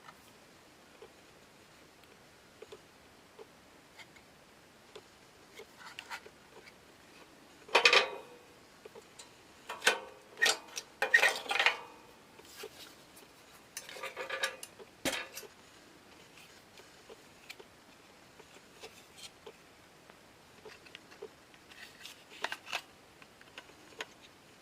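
Metal parts being handled and set down, giving scattered clinks and clatters: faint ticks throughout, a loud clatter about eight seconds in, and a cluster of clinks a few seconds later.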